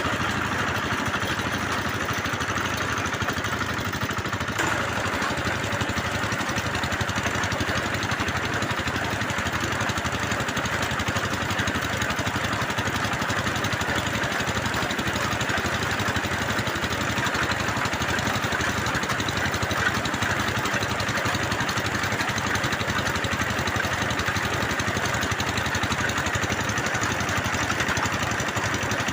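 Engine of a bore well drilling machine running steadily, with a regular low beat.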